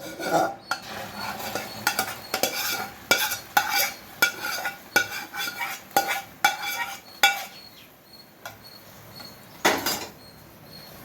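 A metal spoon knocking and scraping against a metal pan: sharp clinks with a ringing tone about every half second, as caramelised sugar syrup is scraped out of a small pan into the halwa. After about seven seconds it goes quieter, with one more clatter near the end.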